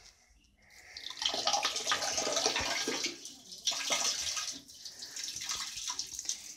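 Water splashing into a toilet bowl, starting about a second in and running on unevenly, with a short break a little past three seconds.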